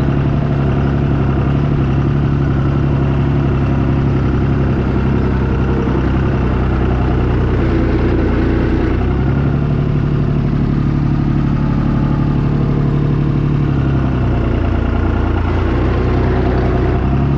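Small red farm tractor's engine running steadily, its speed dipping and picking up again a few times.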